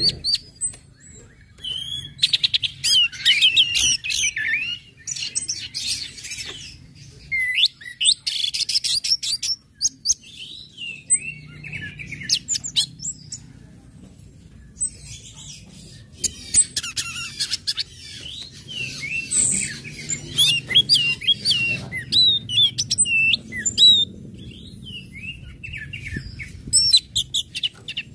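Orange-headed thrush singing a fast, varied song of chirps, twitters and rapid rattling ticks, in bursts with short pauses. This is the chirping and ticking (ngecit, ngecis) and full-song style used to lure other thrushes into singing.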